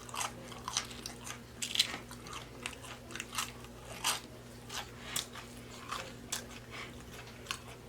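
Close-miked mouth sounds of a person chewing a fast-food sandwich: irregular wet smacks and crunchy bites, about one or two a second.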